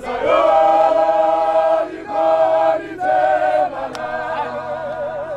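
A large group of South African firefighters singing together a cappella, long held notes in short phrases, the last one wavering with vibrato.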